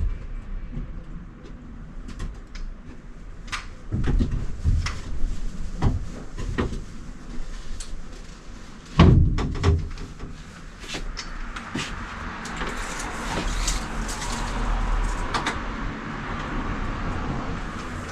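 Scattered knocks and thumps of hands-on building work, the loudest about nine seconds in, with a steady hiss setting in during the second half.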